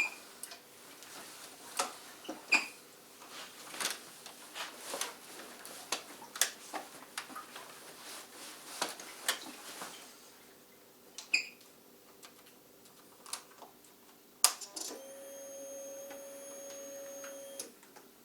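Scattered clicks and taps, then a click and a steady electrical buzz for about three seconds that cuts off: a Suzuki GSX-R motorcycle failing to start on a flat battery.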